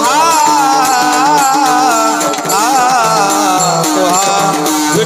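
Male Varkari kirtan singer holding a high, ornamented melodic line, the pitch wavering and gliding without clear words, over instrumental accompaniment and rhythmic percussion.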